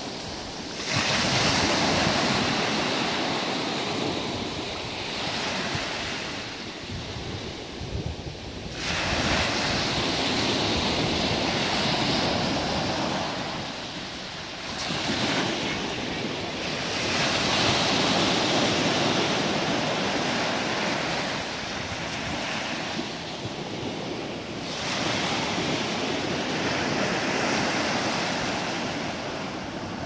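Small sea waves washing up a beach: a rush of surf that swells every few seconds as each wave comes in, then ebbs away, five times in all.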